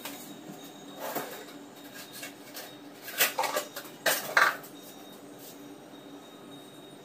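Dishes and kitchen utensils being handled on a counter: a single clink about a second in, then two quick clusters of clinks and knocks in the middle.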